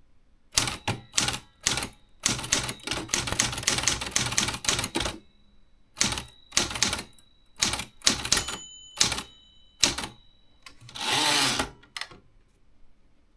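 Remington Quiet-Riter Eleven manual typewriter being typed on: sharp key strikes, some spaced and a quick run of them, then near the end a longer sliding sound of about a second as the carriage is returned.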